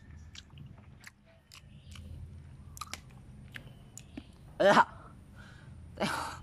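A person chewing the soft flesh of nipa palm fruit: many small wet mouth clicks and smacks. Twice in the second half, a short burst of voice breaks in, louder than the chewing.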